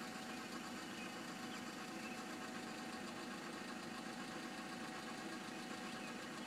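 A machine running steadily: a low, even mechanical hum with a faint constant tone above it.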